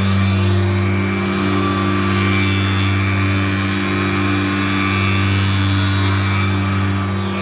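SCM P 64 planing machine running steadily under load, its cutter heads planing a board fed through by the rollers: a constant low motor hum under the hiss of cutting and flying chips.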